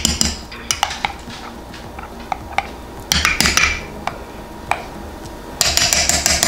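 Metal spoon clinking and scraping against small glass mason jars as relish is spooned in and stirred. Scattered light clinks, a short run of scraping about three seconds in, and a longer stretch of scraping and clinking near the end.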